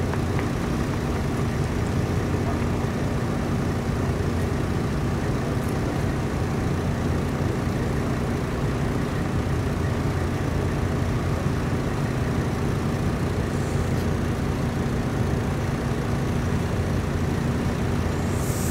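Diesel coach engine idling steadily, an even low drone that holds the same pitch throughout.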